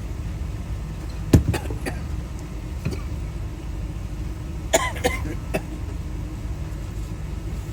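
Sharp clicks and taps of small metal lock parts being handled and fitted on a car door lock cylinder: one loud click a little over a second in, a few lighter ones, and a quick run of three about five seconds in, over a steady low hum.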